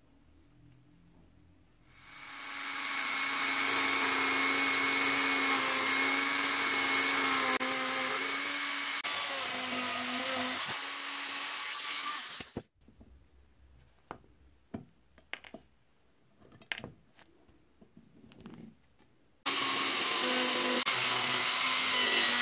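Small high-speed rotary tool with a cut-off disc cutting through a steel washer on the end of a draw knife's tang, a loud steady whine that spins up about two seconds in and stops sharply about halfway. A few light clicks and taps of the metal being handled follow, then the cutting starts again abruptly near the end.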